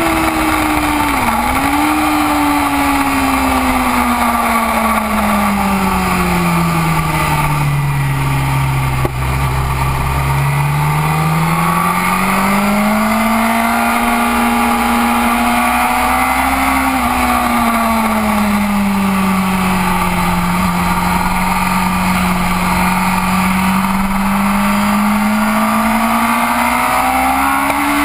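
BMW race motorcycle engine at racing speed, heard from on board with wind rushing over the microphone. The engine note falls steadily for about the first nine seconds as the bike slows, then climbs and holds. It drops briefly about halfway through and climbs again near the end.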